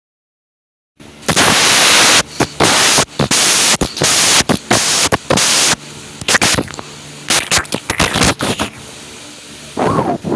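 Homemade sound effects for an animated fight: after about a second of silence, loud hissing blasts and whooshes, then from about six seconds in a quick run of short sharp hits and clicks.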